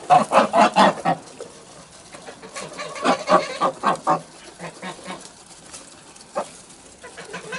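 Domestic geese cackling in rapid runs of short calls while feeding: one run at the start, another about three seconds in, and a single call near the end.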